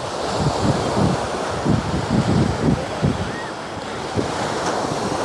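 Ocean surf breaking and washing up the beach on a rough, high-tide sea, with wind buffeting the microphone in uneven gusts.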